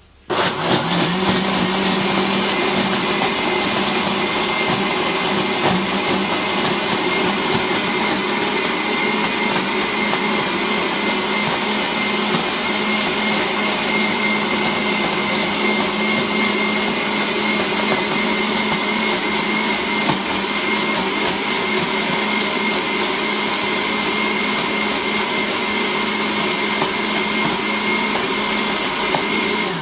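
Electric blender running steadily at full speed for about half a minute, grinding nuts, raisins and flax seed in water, then switched off at the end.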